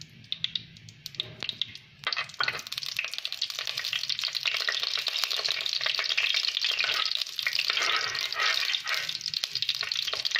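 Ghee sizzling and crackling in hot oil in a clay pot. The sizzle starts up about two seconds in and then runs steadily as more ghee is spooned in.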